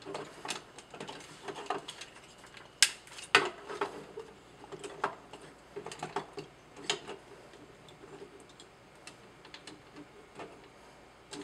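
Plastic transforming robot figure clicking and knocking as it is handled by hand: irregular small clicks of its joints and parts, the sharpest two about half a second apart a little under three seconds in.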